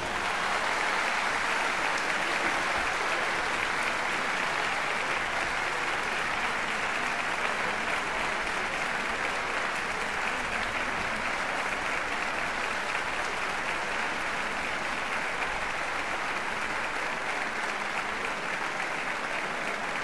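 Applause, steady throughout and easing off slightly toward the end.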